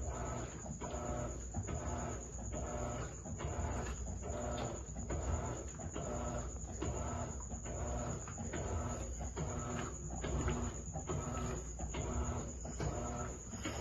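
Electrolux Premium Care LEC17 17 kg top-loading washing machine agitating: its motor drives the wash in short, regular strokes of whining pulses, about one and a half a second, over a steady low rumble.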